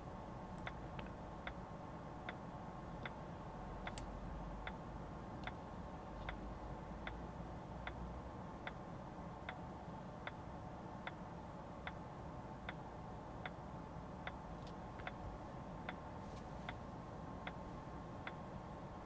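Car turn-signal indicator ticking in a steady rhythm, a little over two ticks a second, over a low steady cabin hum in a Volvo EX30.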